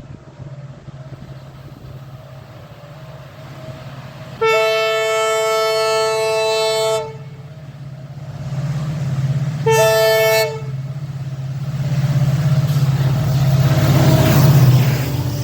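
Indian Railways locomotive horn sounding one long two-tone blast of about two and a half seconds, then a short toot about three seconds later. Under it a steady low drone runs throughout, and the rumble of a passing train builds, loudest near the end.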